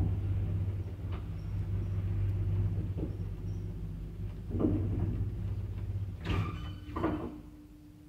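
1990 ZREMB passenger lift, rated at 1 m/s, travelling with a steady low motor hum and a few knocks. About six to seven seconds in it slows and stops with two clunks. After that only a faint steady hum is left.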